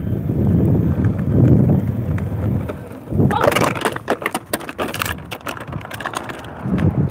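Hoverboard running fast over pavement: a low rumble from the wheels, then from about three seconds in a rapid clatter of clicks and knocks. This is the noise the hoverboard makes at top speed.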